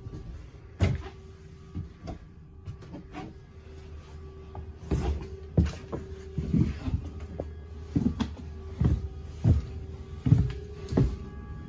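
Footsteps on the floor and stairs of a New Routemaster double-decker bus: a few light knocks at first, then from about five seconds in a steady run of heavy steps, one to two a second. Under them runs a steady hum with a held tone from inside the bus.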